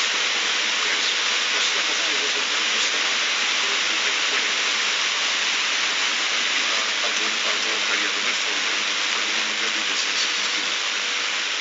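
A loud, steady hiss with a faint steady hum tone running through it.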